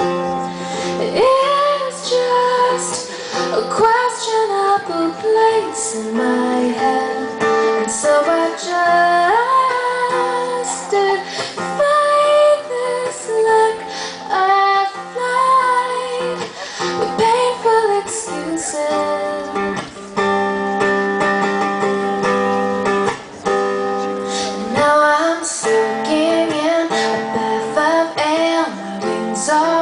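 A live song: a woman singing with plucked and strummed guitar accompaniment.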